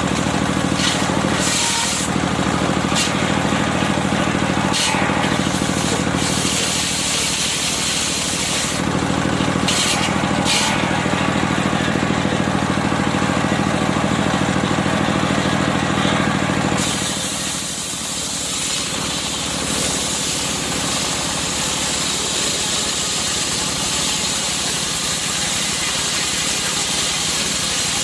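Engine-driven circular sawmill running steadily while sawing medang wood, a constant engine hum under a hiss. About seventeen seconds in the low engine hum drops away and a more even hiss carries on.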